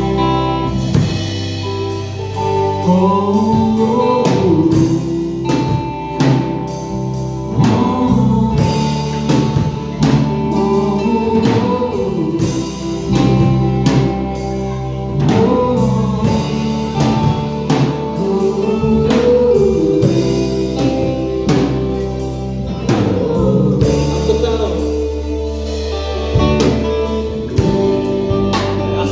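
Live worship band playing a slow gospel song: Tama drum kit, electric guitars and keyboard under a singer's wordless 'oh-oh' vocalizing, the pitch gliding up and down.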